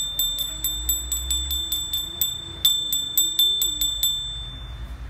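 A small hanging bell rung rapidly and repeatedly, about four strikes a second, each giving the same high, clear ring. The ringing stops briefly about four seconds in, then starts again.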